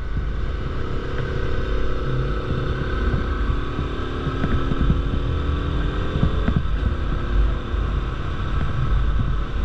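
Bajaj Pulsar RS200 motorcycle's single-cylinder engine running steadily while riding, heard from the bike itself.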